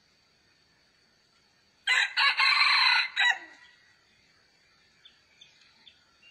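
A rooster crows once, a loud crow lasting about a second and a half, over a steady high-pitched insect drone.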